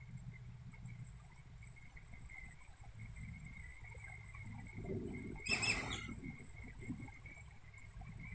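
A bird gives one short call about five and a half seconds in, over a faint, steady low rumble.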